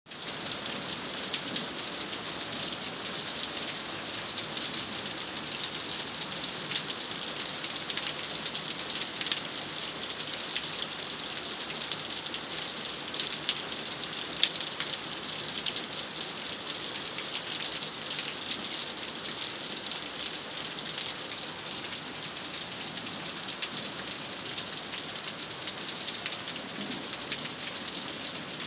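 Heavy rain falling steadily during a thunderstorm, a dense patter of drops hitting surfaces.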